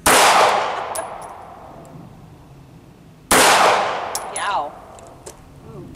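Two pistol shots fired outdoors about three seconds apart, each a sharp report that rings and fades over a second or more. The slow pace fits the long, heavy trigger pull of this compact handgun.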